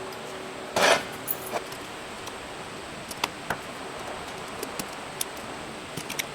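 Hand-work noises from electrical wiring: a short loud scrape or rustle a little under a second in, then scattered light clicks and taps of tools and hardware.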